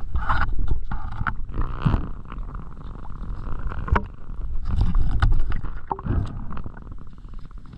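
Underwater sound picked up by a camera submerged with a swimming diver: a steady muffled rumble of moving water with scattered clicks and knocks, and a fast ticking near the end.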